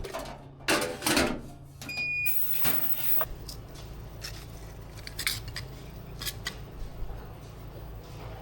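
Metal clinking and clattering, loudest about a second in, with a short high beep about two seconds in. A steady low hum runs underneath.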